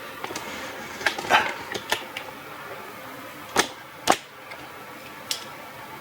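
Sharp clicks and knocks of parts and tools being handled, a cluster of them about a second in and the two loudest about three and a half and four seconds in.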